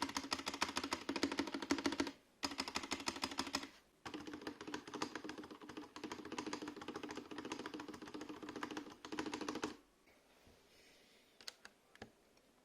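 Fast typing on a Vortex Tab 75 mechanical keyboard: a dense run of key clacks broken by two short pauses, stopping a bit under ten seconds in. A few single key presses follow near the end.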